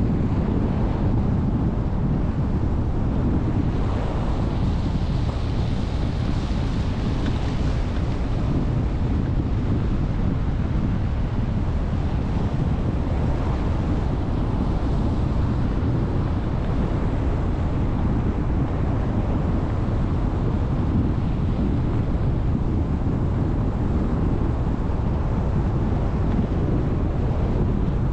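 Steady wind rush buffeting the microphone of a camera mounted on the outside of a moving car, mixed with the car's road and tyre noise, a little brighter for a few seconds early on.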